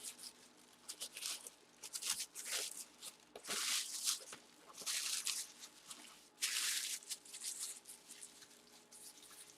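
Packaging rustling and crinkling as it is handled, in several short scratchy bursts of about half a second to a second each, with small clicks and taps between.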